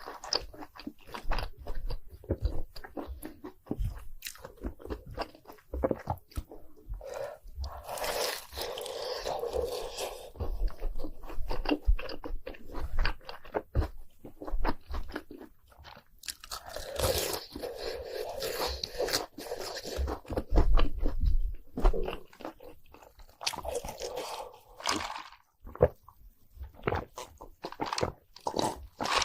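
Crunching and chewing of crispy Hot Cheetos-coated cheese balls: a close run of crisp bites and mouth sounds, with several denser stretches of crunching.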